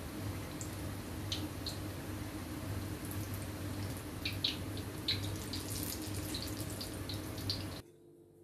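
Batter-coated green chillies deep-frying in hot oil: a steady sizzle with scattered pops and crackles over a low hum, cutting off suddenly near the end.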